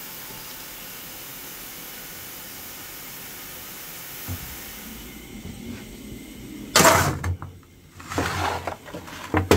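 A steady hiss, then a coal shovel scraped across the locomotive's steel footplate floor three times, short and loud, in the last three seconds.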